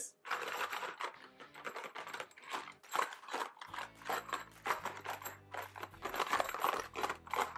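A small cardboard gift box handled and turned over close to the microphone: a run of irregular scrapes, taps and clicks.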